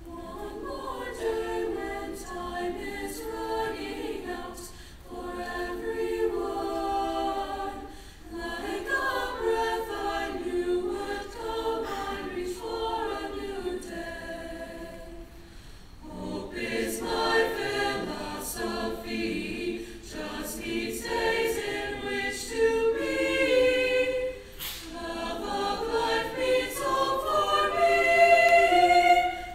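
Mixed-voice choir of male and female singers singing together in phrases, with short breaks between them, swelling loudest near the end.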